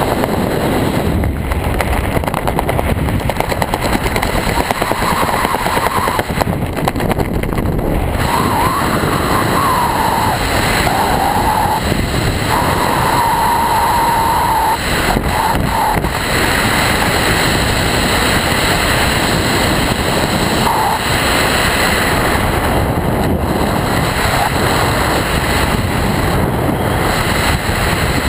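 Steady wind noise rushing over the camera microphone during a parachute descent under an open canopy, with a faint wavering whistle partway through.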